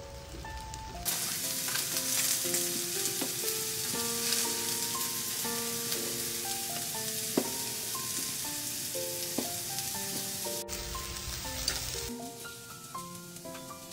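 Diced eggplant and yellow bell pepper sizzling in oil in a frying pan, starting about a second in and dropping away near the end, over light melodic background music.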